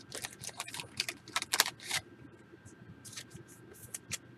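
Trading cards being handled and sorted: a quick run of light clicks and rustles in the first two seconds, then a few scattered ones.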